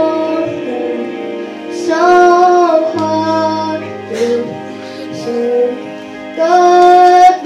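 A boy's unbroken voice singing a pop song into a microphone over instrumental accompaniment with sustained low chords. He holds a long note about two seconds in and another near the end.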